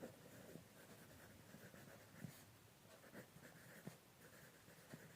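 Faint scratching and tapping of a pen writing on paper, in a few short strokes.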